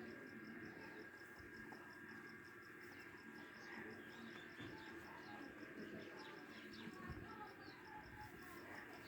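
Faint outdoor ambience: a steady high insect chirp pulsing about four times a second, with scattered short bird chirps in the middle.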